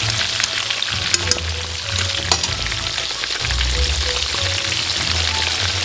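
Breaded pork cutlet frying in hot oil: a steady dense sizzle with a few sharper pops now and then.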